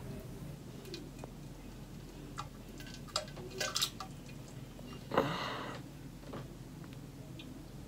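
Faint scattered clicks and drips in a small room, with one short breathy rush of noise about five seconds in.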